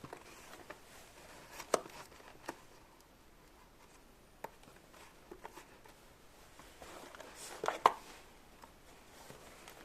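Scattered light clicks and knocks against a quiet background, the loudest two a little under two seconds in and just before eight seconds in.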